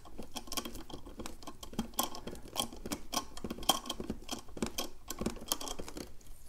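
Irregular small metallic clicks and ticks as a screwdriver threads the pivot screw into an aluminium CNC pedal's hinge on an electric unicycle, the still-loose pedal shifting against its hanger.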